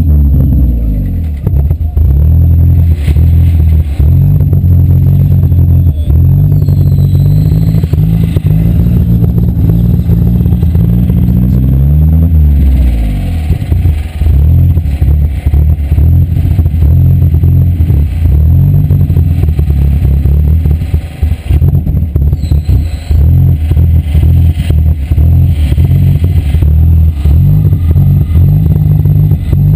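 Demolition derby car's engine revving hard and dropping back, the revs climbing again about twelve seconds in, with rattling and knocks from the car throughout.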